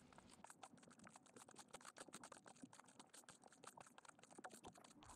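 Small wavelets lapping and ticking against the inflatable paddleboard's nose: faint, rapid, irregular clicking and pattering, several ticks a second.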